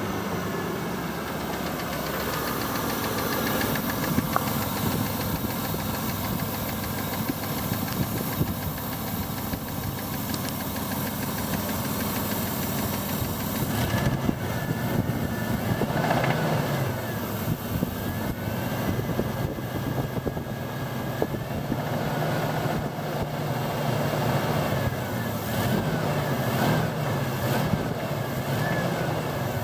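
Mitsubishi Pajero engine running at idle with a rapid, repetitive knocking from the driver-side rocker cover, a noise that appeared after the rocker cover and spark plug well gaskets were replaced; its cause is not yet known. The engine speed wavers a little in the second half.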